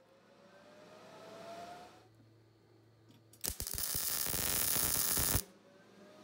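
MIG welder arc crackling through a tack weld of about two seconds on steel tubing, starting about three and a half seconds in and cutting off suddenly. Before it there is a faint rising whine.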